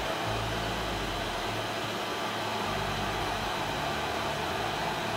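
Steady background noise: an even hiss with a low hum underneath, no distinct events.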